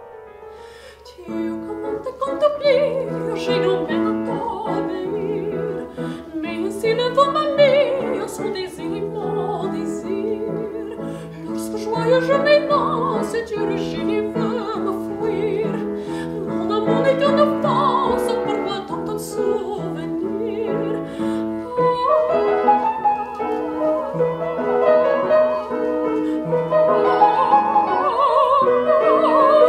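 A woman singing in a classical, operatic style with vibrato, in rising and falling phrases over piano accompaniment. The piano comes in about a second in, and the singing grows fuller and higher near the end.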